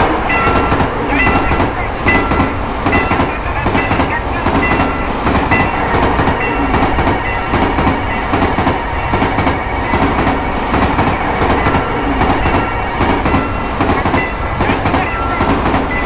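A train passing over a railroad crossing, its wheels clattering rhythmically over the rail joints, while the crossing's warning bell dings repeatedly.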